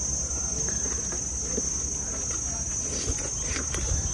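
Insects chirring steadily at a high pitch, with faint chewing of grilled pork.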